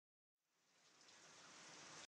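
Near silence: dead silence at first, then a faint, even hiss fades in about a third of a second in.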